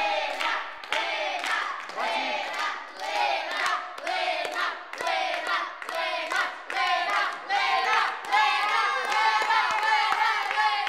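A group of children shouting and cheering together, growing louder and fuller about eight seconds in.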